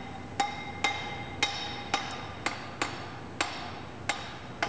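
Repeated hammer blows on a wooden block, driving a Cameron BOP operating cylinder up into its seat over the oiled seals. The strikes come at about two a second, each a sharp knock with a brief metallic ring.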